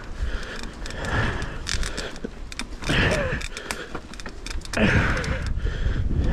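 Full-suspension mountain bike rattling down a rocky dirt trail: irregular clicks and knocks from the chain, frame and suspension as the tyres hit rocks and ruts, over a low rumble of tyres and wind. Two louder patches come about three and five seconds in.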